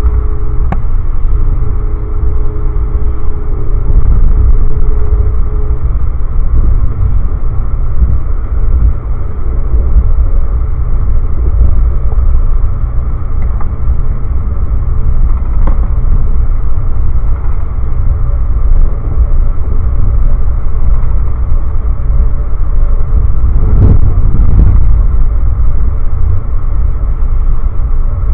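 Steady low rumble of an Amtrak passenger train running along the rails, heard from inside the car. A faint hum sounds for the first few seconds, and a few sharp clicks come through, the plainest about three-quarters of the way in.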